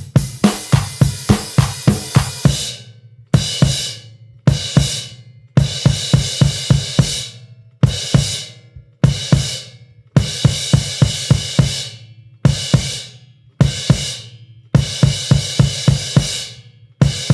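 Background music carried by a drum kit: quick runs of bass drum, snare and cymbal hits in short bursts, with brief breaks between them.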